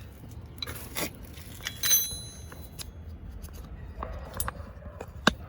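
Metal hand tools clinking and scraping against metal, with a sharp ringing clink about two seconds in and a few lighter knocks later, over a low steady rumble.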